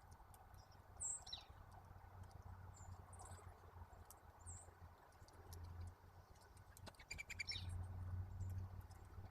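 Faint chirps and short calls of small songbirds around a backyard feeder, with one quick falling note about a second in and a brief rattling chatter near the end, among scattered light clicks.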